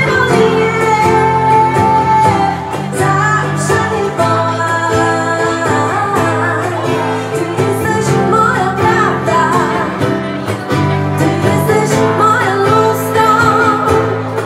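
A woman singing a pop song live over acoustic guitar.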